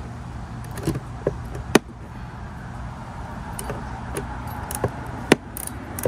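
Hand tool working on the windshield's mounting bolts to tighten them: a few sharp metal clicks and taps, the loudest near two seconds in and again just past five seconds, over a steady low hum.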